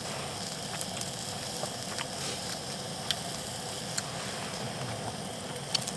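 Beef striploin sizzling as it cooks: a steady hiss with scattered small pops and ticks.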